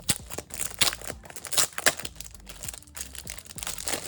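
Packaging crinkling and rustling as it is handled and pulled open, a run of irregular sharp crackles with the densest stretch about a second or two in.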